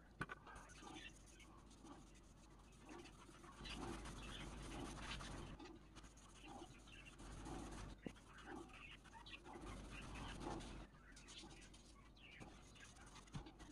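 Faint rubbing and scuffing of a paper shop towel wiped in strokes over a wooden screwdriver handle, with a couple of light clicks.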